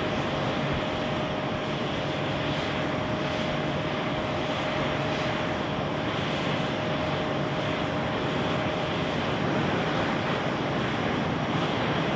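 Boeing 787-9's GEnx turbofan engines running at low taxi thrust: a steady jet rumble with a held whine that fades out about nine seconds in.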